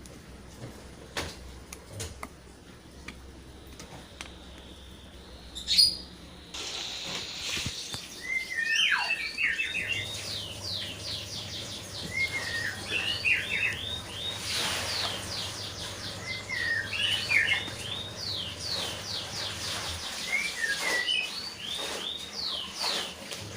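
Birds chirping and singing in quick, repeated phrases of short falling notes, starting about a quarter of the way in. Before that there are only a few scattered soft clicks.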